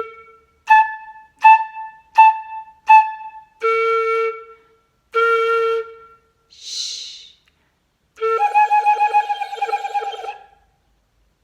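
A flute head joint played on its own in a rhythm: a low note, four short higher notes, and two more low notes, the pitch jumping up and down as the hand closes and opens the end of the tube. A short breathy hiss follows, then a long note that wavers rapidly for about two seconds, the head joint's special hand-movement effect.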